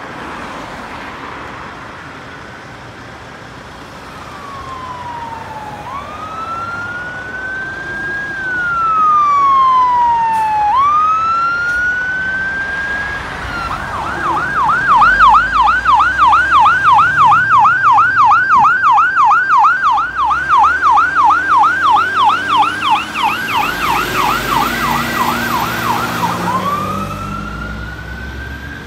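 Fire rescue truck's siren approaching and growing louder: a slow wail rising and falling twice, then about twelve seconds of rapid yelp at roughly three cycles a second, switching back to a rising wail near the end.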